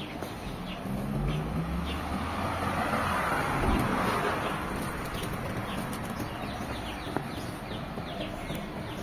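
Street ambience: a car passes, its engine and tyre noise swelling and fading over a few seconds near the middle, while small birds chirp in short repeated notes throughout.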